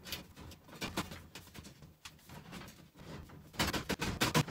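Metal flue pipe of a Kimberly wood stove being worked into place by hand: scattered scrapes and clicks of sheet metal, with a quick run of louder knocks and scraping near the end.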